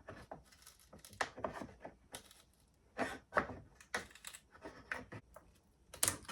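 Irregular clicks, taps and cracks of a small pry bar working wooden window trim loose, with the strongest knocks about three seconds in and near the end.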